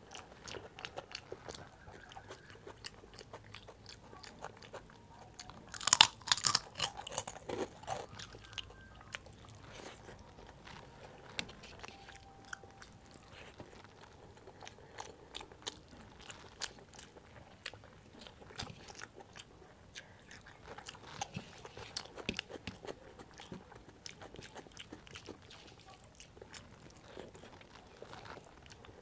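Close-miked eating: fingers squishing rice and dal on a steel plate, and chewing. About six seconds in there is a loud, crunchy bite, with smaller crunchy bursts later on.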